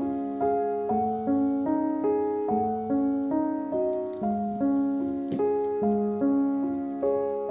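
Background piano music: soft notes struck in a steady, even rhythm, about two to three a second, each fading before the next.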